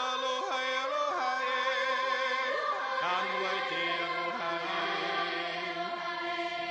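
Recorded music playing: a choir chanting in Hawaiian with long held notes that slide from one pitch to the next.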